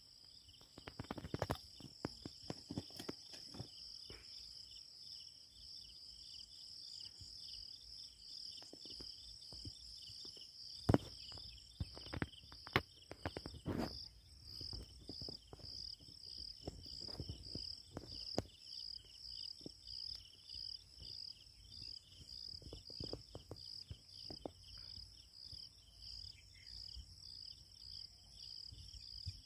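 Insects chirping in a steady, high, pulsing drone, with scattered short knocks and rustles close by.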